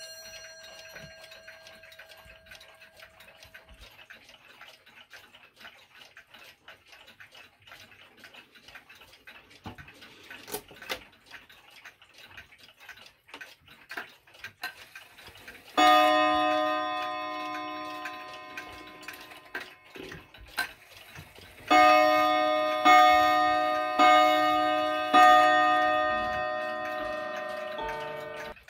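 Seiko 30-day pendulum wall clock striking as its hands are turned by hand: a single ringing gong strike about 16 seconds in, then four strikes about a second apart, each ringing on and fading. Clock ticking is heard before the strikes.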